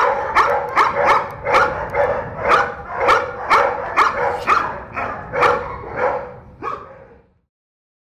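Shepherd dogs barking in a quick run of barks, about two to three a second, cut off suddenly near the end.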